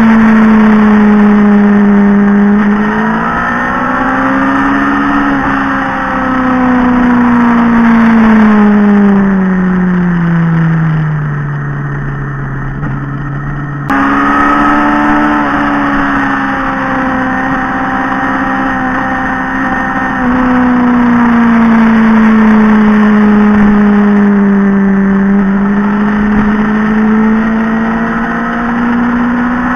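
Motorcycle engine heard from on board, its note rising and falling with the throttle through a run of bends. It winds down steadily as the bike slows, jumps abruptly back to a higher note about halfway through, then eases down again and picks up near the end.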